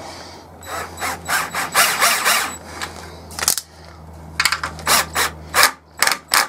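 Cordless drill-driver driving a wood screw through a hinge into a timber wall plate. The motor runs steadily with a gritty, grinding noise as the screw bites into the wood, and stops a little before the end.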